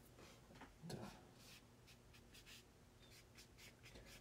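Faint, irregular scratchy strokes of a paintbrush on watercolor paper, with one soft bump about a second in.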